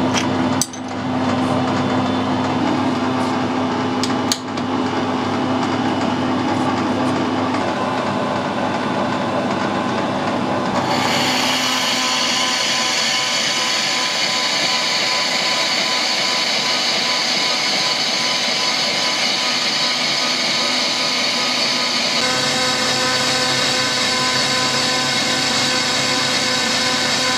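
Metal lathe running slowly, with two sharp clinks of a spanner tightening the carriage lock in the first few seconds. About eleven seconds in the tool starts a heavy facing cut on a cast iron back plate, adding a steady gritty hiss over the machine's running.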